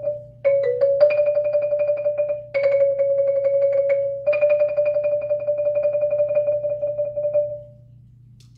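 Musser M32 marimba played with yarn mallets: a series of sustained rolls, rapid repeated strokes on mid-register notes that change a few times, the last roll dying away about three-quarters of the way in.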